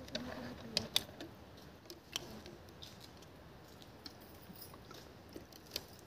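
A person chewing bread, with a few faint, small clicks and taps from handling the food and a plastic drink bottle.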